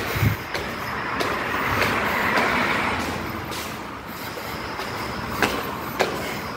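Road traffic: a vehicle passing close by, its engine and tyre noise swelling about two seconds in and fading away, with a few light clicks.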